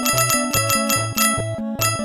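Chiptune 8-bit video game music with a pulsing bass line, overlaid with bright 8-bit bleeps of points being scored: a quick run at the start, then single ones about a second in and near the end.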